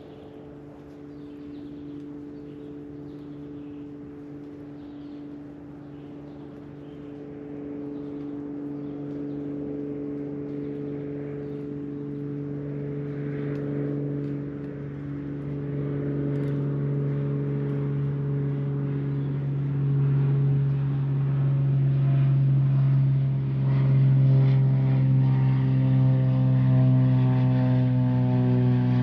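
A distant engine droning steadily and growing louder as it approaches, with more tones joining in over the last few seconds.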